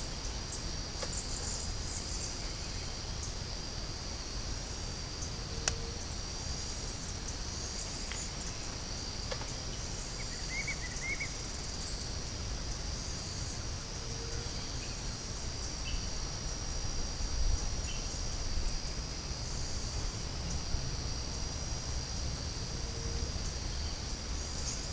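A steady, high-pitched chorus of insects in the riverside vegetation over a low background rumble, with a few faint short chirps about ten seconds in and a couple of small clicks.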